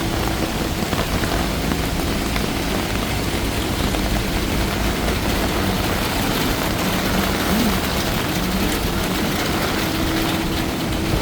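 Steady rain falling on a wet city street, with road traffic running through it.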